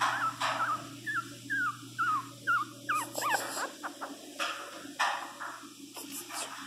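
Pinscher puppy crying in a quick series of short, high whimpers, about two a second, each falling in pitch. The cries stop a little past halfway, leaving a few brief scuffling noises.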